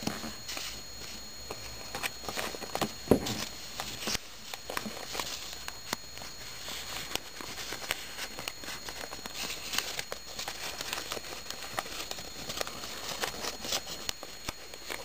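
Folded paper origami units rustling and crinkling as they are handled and slotted together into a cube, with many small taps and clicks and one louder knock about three seconds in.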